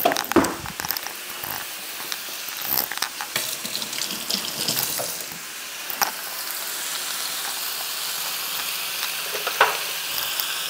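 Ground beef sizzling as it fries in a hot pan, a steady hiss that builds slightly about halfway through. A few knocks and taps come in the first three seconds.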